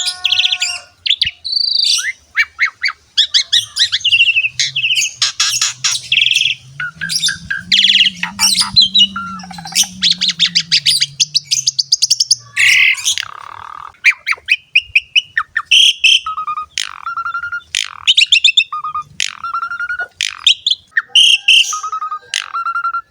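Pied starling (jalak suren) singing continuously in full voice: a fast, varied stream of chirps, trills, whistles and harsh squawky notes, with a short whistled note repeated over and over in the second half. A faint low hum sits under the song for several seconds near the start.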